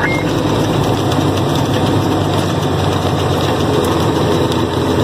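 A heavy truck's diesel engine runs steadily at low speed, heard from inside the cab together with the rumble of the truck rolling slowly.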